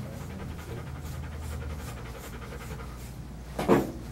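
Large dog panting steadily, with a short, louder sound near the end.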